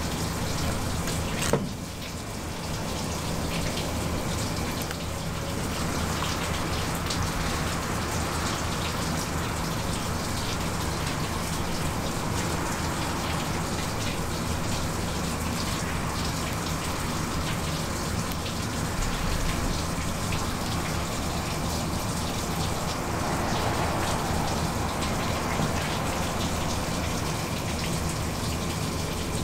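Steady rush of running water with a low hum beneath it, and a single sharp knock about a second and a half in.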